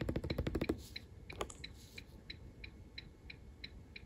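Ford Ka's turn-signal indicator ticking steadily, about three ticks a second, as the indicators flash on their own with the crash fuel cut-off triggered. A quick run of clicks plays over the first second.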